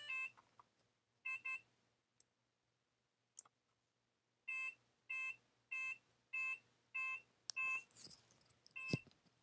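A brushless ESC beeping through the plane's motor during throttle calibration: two quick beeps after the battery is connected at full throttle, then, once the throttle is at zero, six evenly spaced beeps about 0.6 s apart and a last beep near the end. A brief rustle of handling comes just before the last beep.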